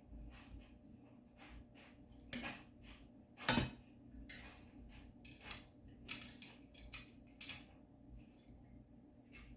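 Allen wrench and small wrench clinking against a screw and the metal frame of a garment rack as a long screw is tightened. Scattered sharp metallic clicks, the two loudest about two and a half seconds in and a second later, then a run of lighter clinks.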